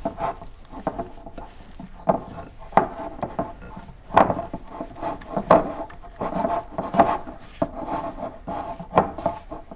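Silicone spatula stirring a thick, sticky dough of melted mozzarella, cream cheese and almond flour in a glass mixing bowl: irregular scraping and rubbing, with frequent sharp knocks of the spatula against the glass.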